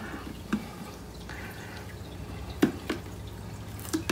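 Fingernails picking at packing tape on the sides of a hard plastic kitchen prep station: three short, sharp ticks spread across the few seconds, with a faint brief scratch of tape between the first two.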